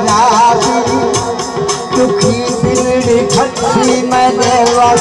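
Loud live Saraiki folk music played through loudspeakers: a steady percussion beat under a wavering melody line.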